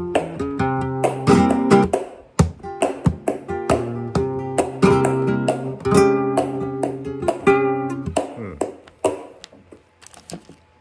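Flamenco guitar with a capo playing chords and single-note lines in tangos rhythm, punctuated by sharp strummed strikes. The playing stops about nine seconds in and the last notes ring away.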